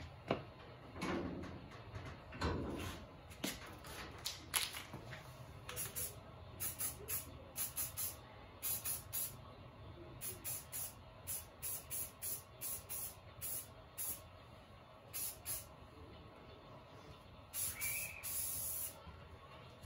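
Aerosol can of primer sprayed in many short hissing spritzes, about two a second, then one longer spray near the end. A few knocks and handling clatter come first.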